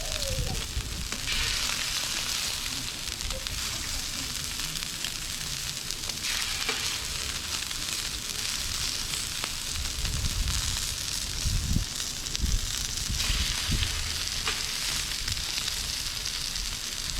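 Sea scallops searing in hot olive oil on a steel discada over a propane burner: steady sizzling that grows louder about a second in and again around six seconds in, with a low rumble underneath.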